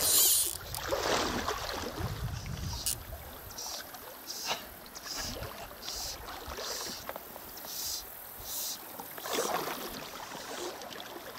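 Water sloshing and splashing in a shallow creek, a series of short splashes about once a second over the steady flow, like a person wading through the current.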